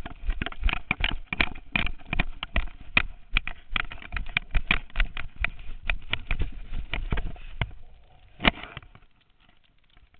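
Rapid, irregular knocking and scraping from a GoPro strapped to a black Labrador puppy's collar, jostled against the fur and collar as the puppy moves. It thins out after one louder knock about eight seconds in, then goes nearly quiet.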